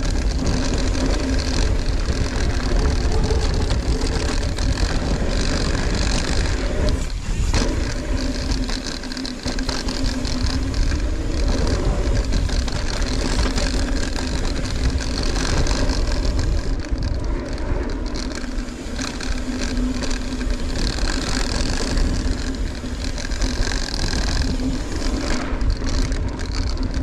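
Ibis Ripmo mountain bike riding a dirt trail: a steady rush of wind and tyre noise with the bike rattling over the ground.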